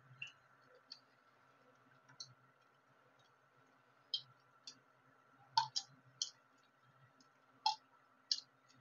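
Tamarind water heating in an aluminium kadai on a gas stove, giving scattered sharp pops and crackles as it starts to bubble in the seasoning oil, the loudest around the middle and near the end. A faint steady hum lies underneath.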